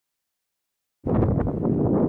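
Dead silence, then about a second in the sound cuts in to wind buffeting the microphone: a loud, gusty rumble.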